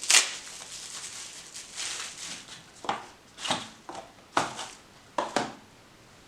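Handling noise from a folding knife and its packaging: rubbing, then a few short knocks and clicks spread over a couple of seconds.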